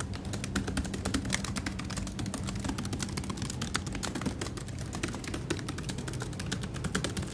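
Rapid, continuous typing on a laptop keyboard: many quick, irregular key clicks over a low steady hum.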